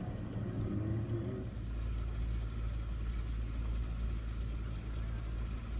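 Low steady rumble with a hum, growing heavier about a second and a half in.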